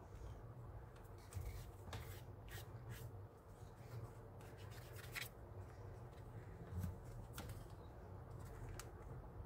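Faint handling noise as a plastic power bank is turned over in the hands: a dozen or so soft, irregular clicks and rubs over a low steady rumble.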